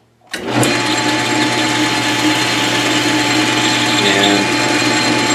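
Metal lathe starting suddenly about a third of a second in and running loud and steady while the cutting tool turns down the shoulder of a tailstock ram.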